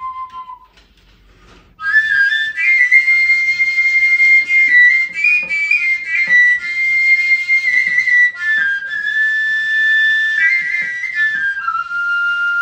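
Wooden flute playing solo: a held note that ends shortly in, a short pause, then a melody of quick breathy notes that settles on a long held note near the end.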